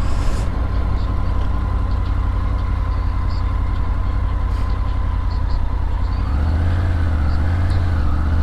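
Motorcycle engine running at low, steady revs; about six seconds in the revs pick up and the engine note rises and wavers.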